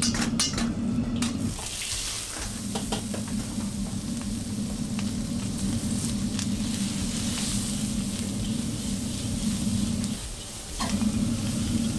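Stir-frying in a carbon-steel wok over a gas wok burner: food sizzling and hissing while the metal ladle clanks and scrapes against the wok, with several sharp clanks in the first second. Underneath runs the burner's steady low rumble, which drops out briefly about two seconds in and again near the end.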